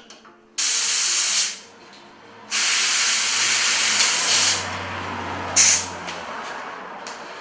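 Compressed air hissing in bursts as it blows dust out of the TV's circuit boards: a burst of about a second, a longer one of about two seconds, then a short puff.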